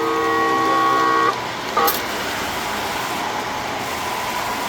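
A horn sound effect from a model railroad layout: a steady chord of several held notes that cuts off about a second and a half in. A short click with a brief beep follows, then a steady background hum.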